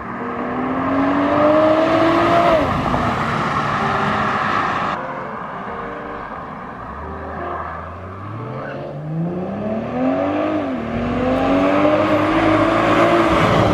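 BMW M340i's turbocharged three-litre straight-six, fitted with a catless downpipe, revving up hard twice: the pitch climbs for about two and a half seconds and falls away, then about seven seconds in climbs again, dips briefly and climbs once more until it drops off near the end.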